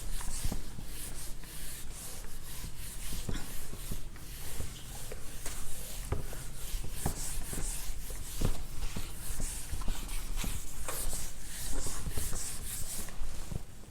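Someone writing by hand: a steady run of short scratching strokes with small ticks as the tip meets the surface.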